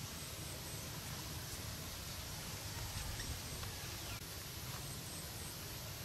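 Outdoor rural ambience: a steady low rumble with a few faint, short high-pitched chirps, typical of birds in the distance.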